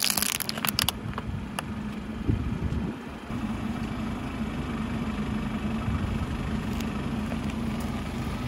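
Car tire crushing something brittle: a burst of crackling crunches in the first second and one more snap shortly after, then the car's engine idling steadily.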